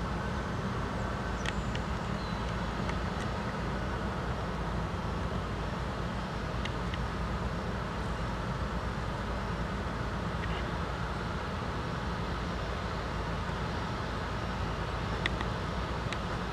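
Airbus A320-251N's CFM LEAP-1A turbofan engines at taxi power as the airliner taxis and turns toward the listener: a steady, even rumble, with a few faint clicks.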